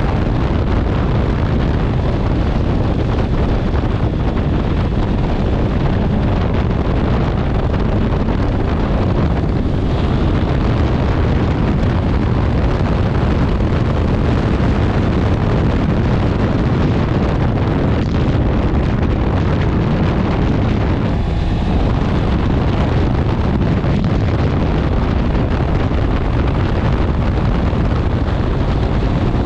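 Loud, steady wind rush over the microphone of a Honda CB650R motorcycle at riding speed, heavy in the low end.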